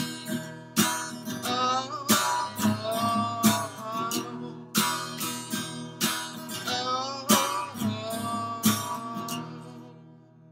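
Acoustic guitar strummed about once a second under a sung melody; the playing thins out and the last chord rings out and fades near the end.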